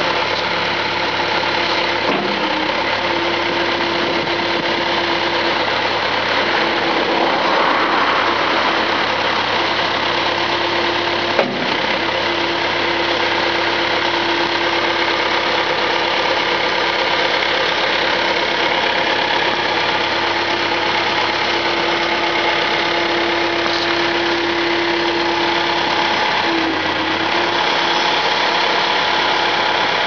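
Terex backhoe loader's diesel engine running steadily, with a steady whine over it while the loader arms raise and tip the bucket. A single sharp knock about eleven seconds in.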